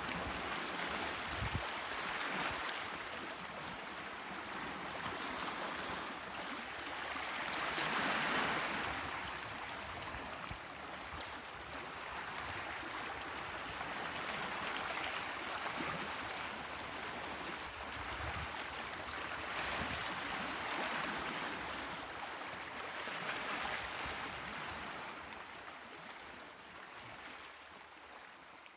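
Gentle sea waves washing in on the shore, each wash swelling and falling away every few seconds, the whole fading out near the end.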